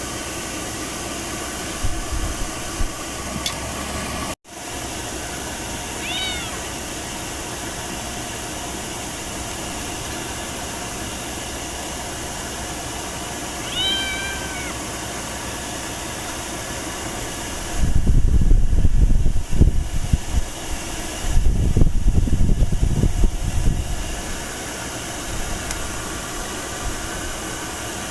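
Ragdoll cat meowing twice, two short arching calls several seconds apart, over a steady rushing hiss. In the second half come two stretches of loud low rumbling.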